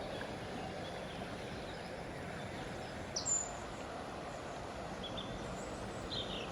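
Steady outdoor noise with a few short high bird chirps, one about three seconds in and two more near the end.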